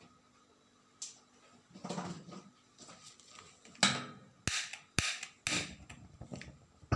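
Metal saucepan being handled in a kitchen: a series of sharp knocks and clatters, the loudest about four seconds in.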